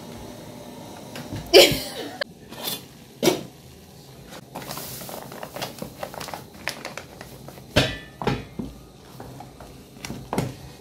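Ugali being made in a metal cooking pot: maize flour poured into boiling water, then a wooden cooking stick knocking and scraping against the pot as the stiff dough is stirred and pressed. There are a dozen or so sharp knocks, the loudest about one and a half seconds in, and a soft rush of pouring near the middle.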